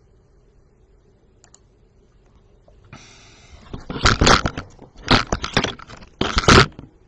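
Rustling and scraping noises close to the microphone: a short stretch of hiss-like rubbing, then three loud, ragged bursts about a second apart.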